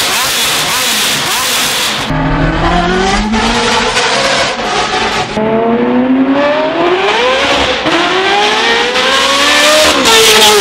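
Ferrari F430's straight-piped V8 revving hard, then, about two seconds in, accelerating flat out through the gears, its pitch climbing in each gear and dropping back at each upshift.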